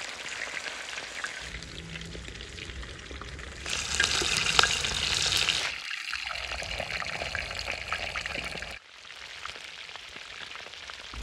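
Lamb meat sizzling as it fries in hot fat, a steady crackling hiss that comes in short cut-together stretches. The sizzle is loudest from about four to six seconds in, and it turns quieter near the end.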